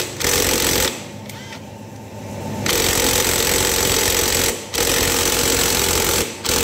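Impact wrench hammering on a scooter's 17 mm flywheel (magneto rotor) nut in repeated rattling bursts of one to two seconds, with short breaks and a longer pause about a second in. The nut is quite tight and takes several goes to break loose.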